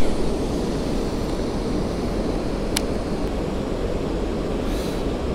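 Steady rush of river water pouring over a low weir. One sharp click about three seconds in.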